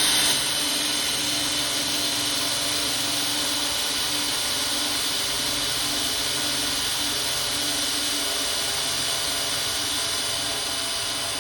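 Power drill running steadily under load, its 1/8-inch Milwaukee cobalt bit cutting into metal without any issues.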